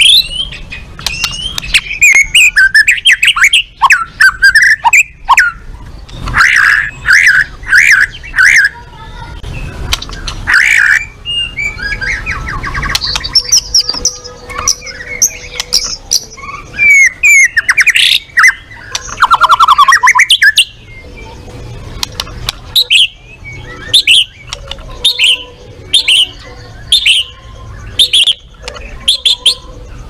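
White-rumped shama singing in full voice: a loud, varied song of clear whistles, trills and rapid chattering phrases with short pauses between them. Near the end it settles into a run of short whistled notes, about one a second.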